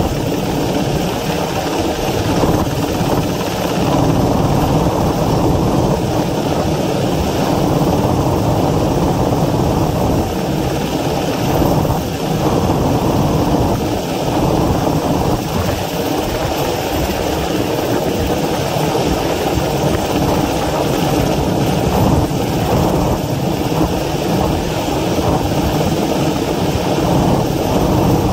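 Helicopter hovering overhead on a long line: steady, loud rotor and engine noise.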